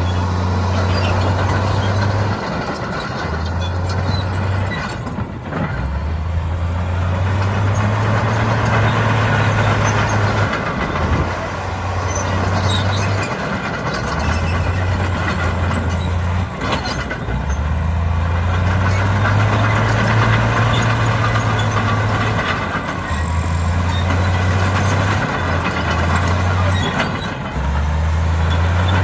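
Heavy diesel engine of earthmoving machinery working under load, its low note rising and falling every few seconds as the revs change, over a continuous rumble.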